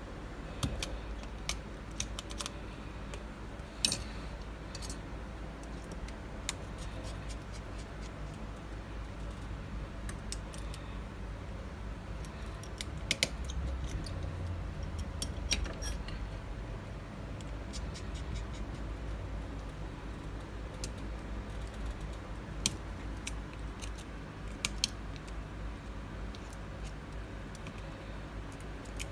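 Small metal clicks and taps of precision screwdrivers and tools on an iPhone 7 Plus's screws and internal parts as it is taken apart, coming irregularly over a steady low hum.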